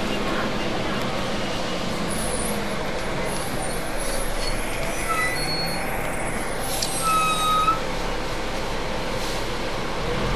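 Steady running of a diesel double-decker bus standing at a terminus bay, with a few short high squeals around the middle and a slightly louder moment a little before the end.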